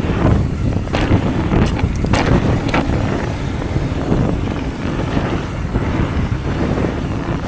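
Wind buffeting the microphone during a fast e-mountain-bike descent on a flow trail, a steady low rumble with a few short clicks and knocks.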